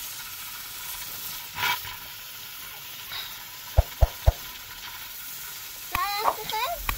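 Steady hiss with three sharp dull thumps about four seconds in, then a small child's high, wavering voice near the end.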